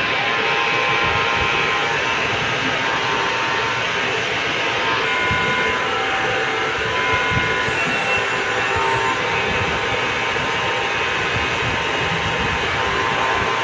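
Steady drone of large-ship machinery: a constant low rumble with several unchanging hums over it, typical of a ship's engines and ventilation running while it is manoeuvred alongside a berth.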